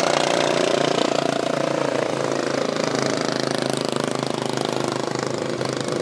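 Engines of racing lawn mowers running as they lap a dirt track, several engines at once. The sound is loudest in the first second or two, as a mower passes close by, then eases a little.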